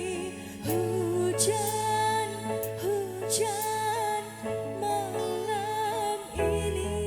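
Music: a slow song with a wavering sung melody over held bass notes that change about a second in and again near the end.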